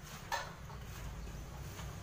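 A piping crow (Sulawesi crow) gives one short, faint call about a third of a second in, over a low background hiss.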